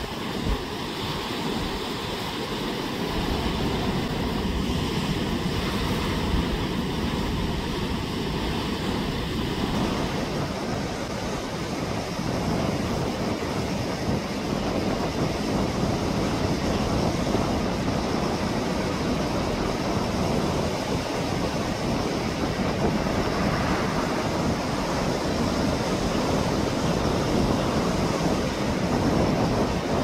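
Heavy surf breaking and churning over rocks close offshore, a continuous roar of rough sea. The swell is stirred up by a passing typhoon.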